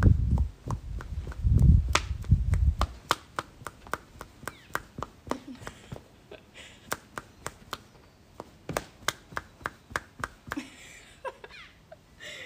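A run of sharp clicks or snaps repeating about three times a second, with heavy low thumps during the first three seconds.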